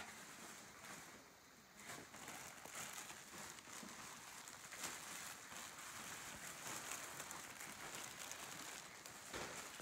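Faint rustling and crinkling with scattered light taps as cut chrysanthemum stems and plastic sheeting are handled, over a steady hiss.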